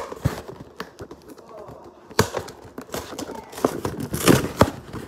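Lunchables package being handled and opened: a run of plastic and cardboard clicks, crinkles and rustles, loudest about two seconds in and again near the end.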